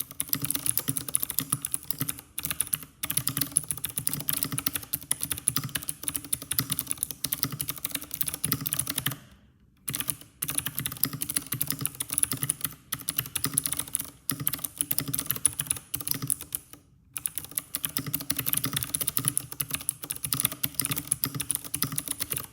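Fast, continuous typing on an IQUNIX F97 mechanical keyboard with clicky blue switches, dense key clicks with two brief pauses about nine and seventeen seconds in.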